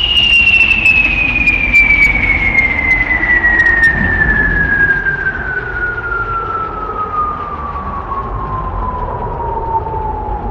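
Synthesized storm-like soundscape: a single pure whistling tone glides slowly and evenly down from high to mid pitch over a steady low rumbling noise. A few faint high clicks sound in the first few seconds.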